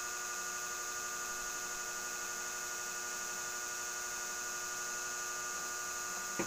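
Steady electrical mains hum with a high hiss. Near the end there is one short knock as a drinking glass is set down on the table.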